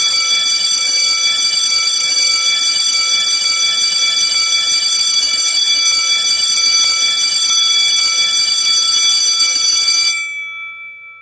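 School bell ringing continuously, then stopping about ten seconds in, its tones dying away.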